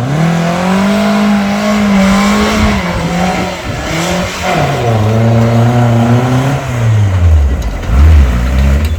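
An off-road 4x4's engine revving hard, its pitch climbing and dipping, then falling to a lower drone near the end.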